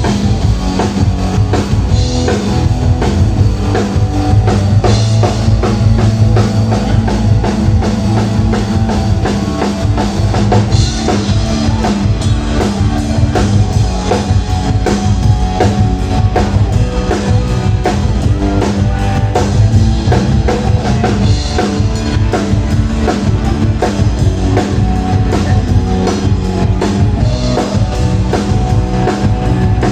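Band playing rock music live: drum kit keeping a steady beat with electric guitar and bass, cymbal crashes here and there.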